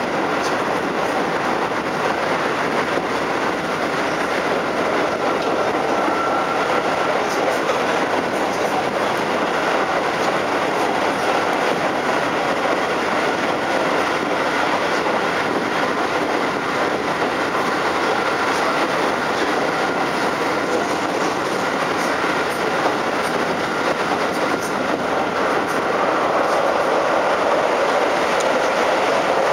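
Keikyu New 1000 series motor car with Mitsubishi IGBT-VVVF drive running at speed, heard from inside the car: a steady rumble of wheels on rail with light clickety-clack over rail joints.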